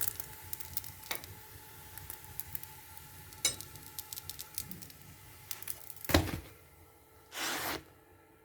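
Faint crackling sizzle of an oiled tagine heating under its lid, scattered small ticks, with a sharp ringing clink about three and a half seconds in, a heavy thump about six seconds in and a short hiss near the end.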